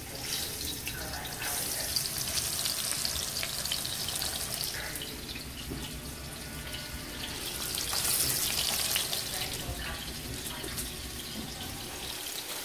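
Hot canola oil sizzling and crackling in a skillet, a dense hiss of fine pops, getting louder about eight seconds in.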